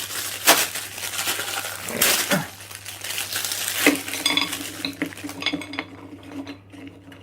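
Plate and cutlery clinking and knocking as frozen chips and a burger are spread out on a plate, with a sharp knock about half a second in and another near four seconds, after which a low steady hum carries on.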